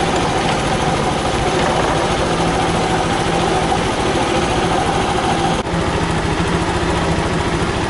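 Suzuki Burgman 125 fuel-injected scooter's single-cylinder four-stroke engine running steadily, with a brief break about five and a half seconds in.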